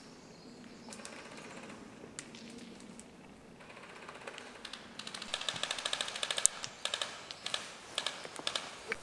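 Airsoft rifle firing bursts of rapid, sharp clicking shots, starting about five seconds in.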